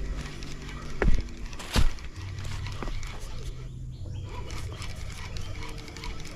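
Spinning rod and reel being handled through a cast: two sharp knocks about a second in and a moment later, then a steady low hum underneath.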